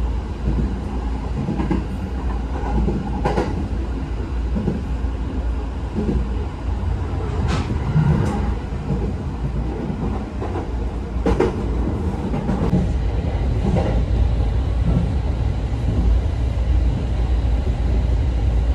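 Passenger train running, heard from inside the carriage: a steady low rumble with a few sharp clacks a few seconds apart.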